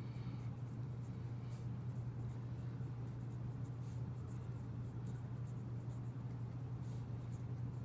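A marker pen writing on a paper worksheet: faint, short scratchy strokes over a steady low hum.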